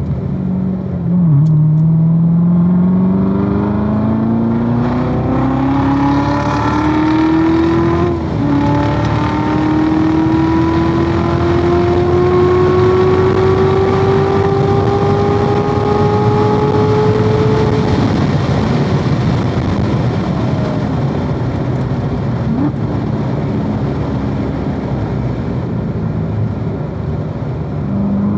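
2016 Corvette Z06's supercharged 6.2-litre V8 under hard acceleration on track: the engine note climbs steadily, drops briefly at an upshift about eight seconds in, then pulls through a long rising gear. Near the two-thirds mark the throttle comes off and the engine note fades under a steady rush of wind and tyre noise.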